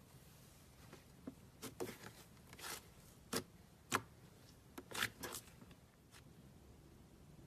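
Slime being squeezed and stretched by hand, giving a run of about ten short sticky pops and clicks between about one and six seconds in, the sharpest near the middle.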